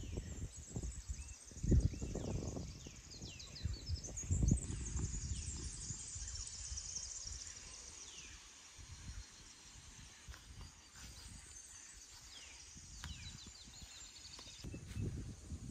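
Wild birds calling all through, many short falling whistles and chirps overlapping. In the first few seconds low rumbling thumps on the microphone come and go, loudest about two seconds and four and a half seconds in.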